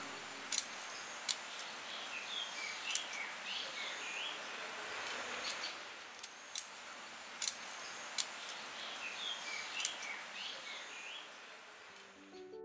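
A pair of scissors snips sharply about ten times at irregular intervals over a steady background hiss. Birds chirp in two short runs, a couple of seconds in and again near the end.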